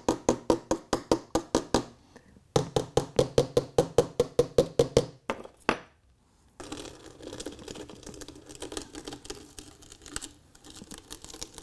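A spoon beating rapidly on ballasted OO gauge model railway track, about six sharp taps a second in two runs, shaking loose ballast off the sleepers. It is followed by quieter, irregular scratching as the loose ballast is pushed about.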